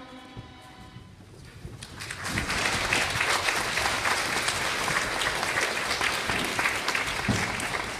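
Children's choir singing dies away, then about two seconds in an audience breaks into steady applause, many hands clapping at once.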